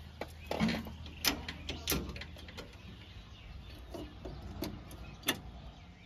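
A handful of sharp metallic clicks and clunks, spaced irregularly, from the hand control levers of a Swaraj 843 XM tractor being moved, with the engine not yet running.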